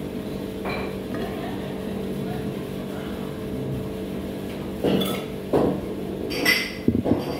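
Dishes and cutlery clinking and knocking a handful of times in the second half, over a steady low hum.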